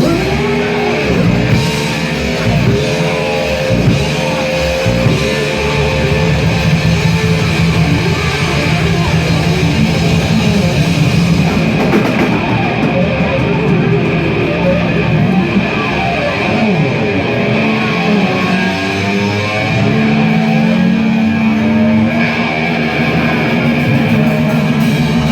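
A live rock band playing loud, with distorted electric guitar and drum kit; the guitar swoops up and down in pitch through the first part and settles into held notes near the end.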